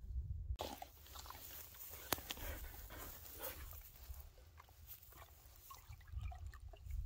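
Belgian Malinois panting close by, with scattered crinkles and clicks from a plastic water bottle being handled and one sharper click about two seconds in. Near the end water is poured into a collapsible dog bowl, and low wind rumble sits on the microphone throughout.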